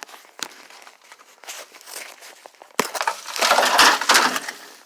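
The wrecked, rusty metal shell of a smashed microwave being flipped over: a sharp knock a little before three seconds in, then loud scraping and crunching for about a second and a half.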